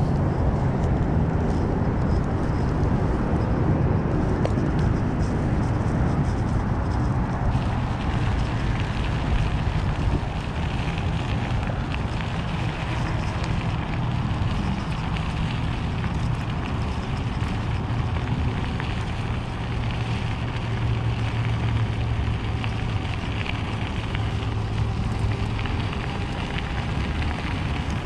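Steady wind rush and rumble on the microphone of a moving electric bike, with its tyres rolling over rough, gritty pavement.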